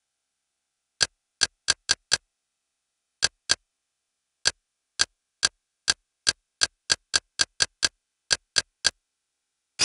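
Menu navigation clicks of a media-center interface as the selection steps down a TV channel list: about twenty short, sharp ticks in quick runs with brief pauses, and a slightly longer click right at the end.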